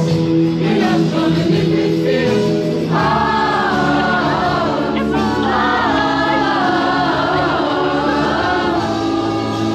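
Music with singing voices: held instrumental tones, with the voices coming in about three seconds in.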